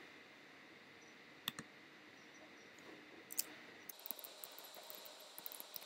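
Computer mouse clicks: a quick double click about a second and a half in and another click past three seconds. From about four seconds on, a run of quick, light keyboard taps follows, all faint.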